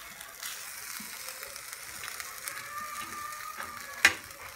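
Thin slices of steak-like meat and a hot pepper sizzling in a ridged grill pan on a gas stove, with a sharp clack about four seconds in.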